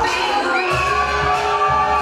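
A song with a singing voice playing, with a bass line underneath: dance music.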